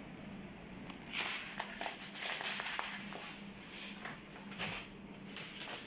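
Crinkling of a plastic packaging bag being handled at a sealing machine, in short irregular bursts with a few sharp clicks, over a faint steady low hum.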